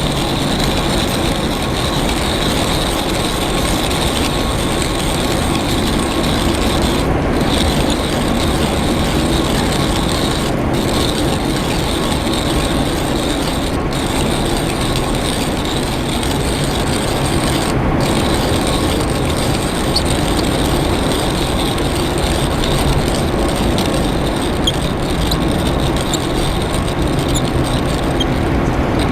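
Geothermal steam vent hissing with a steady, loud rush and a constant high whistle-like tone riding on it.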